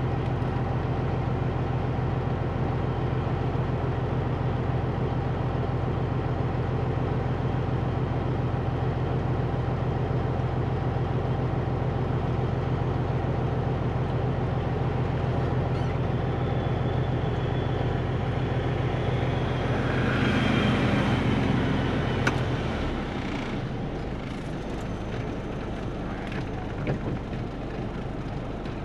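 Caterpillar 3406B diesel in a Peterbilt 362 cabover idling steadily. Around two-thirds through there is a brief swell of louder noise, then the engine sound drops lower and quieter.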